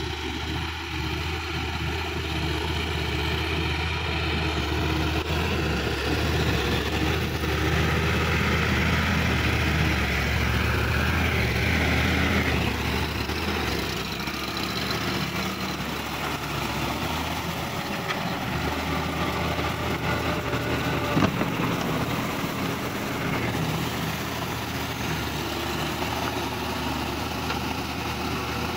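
Sonalika DI-50 RX tractor's diesel engine running steadily under load while pulling a rotary tiller through wet paddy mud. It grows louder as the tractor passes close, a few seconds in, then eases off as it moves away.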